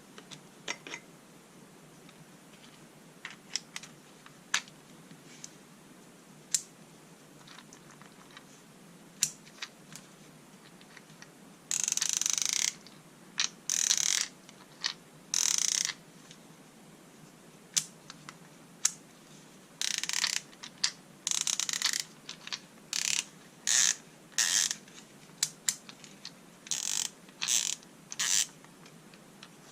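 Gearwrench ratchet screwdriver's ratchet clicking. A few scattered single clicks come first, then from about halfway through a run of short bursts of rapid ratcheting, as if the handle were swung back and forth.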